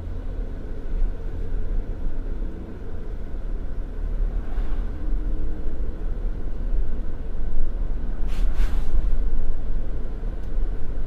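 Car driving at low speed: a steady low rumble of engine, tyre and wind noise, with a brief rushing swell about eight seconds in.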